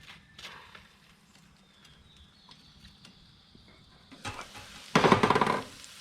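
A few faint clicks, then from about four seconds in a spatula stirring and scraping scrambled eggs in a sizzling frying pan. It is loudest for about a second near the end.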